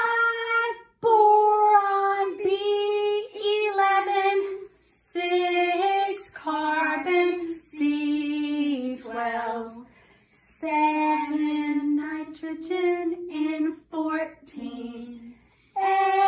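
Two children, a girl and a boy, singing unaccompanied: a periodic-table memory song that chants each element's number, name, and symbol with atomic mass, in phrases broken by short pauses for breath.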